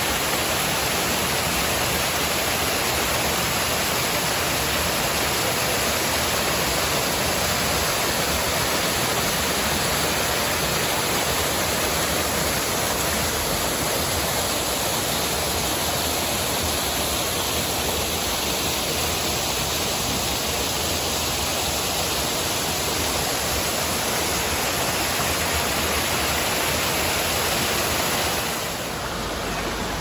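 Water pouring down a small rock waterfall into a pool: a steady, even rushing splash. Near the end it drops to a quieter splashing of water spilling down a small channel.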